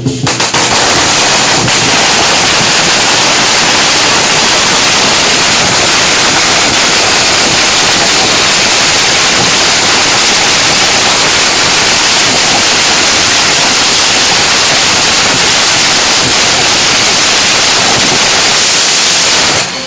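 A long string of firecrackers going off in a loud, continuous rapid crackle that stops suddenly near the end.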